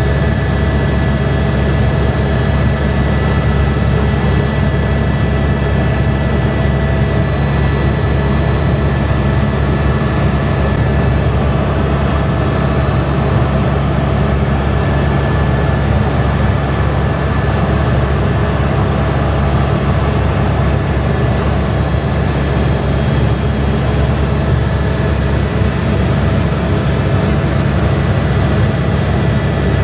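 Helicopter in flight: a steady low drone from the rotor and engine, with a steady high whine over it.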